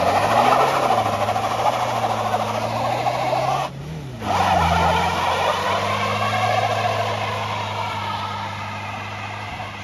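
Front-wheel-drive Opel Astra estate doing a burnout: the front tyres screech as they spin, over the engine held at high revs. The screech breaks off briefly about four seconds in, then resumes and fades as the car pulls away.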